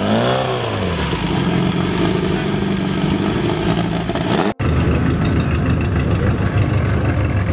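Race-built Honda Civic EG hatchback engine blipped once, the pitch rising and falling within about a second, then running steadily at idle. Partway through, the sound breaks off abruptly and a steady idling engine carries on.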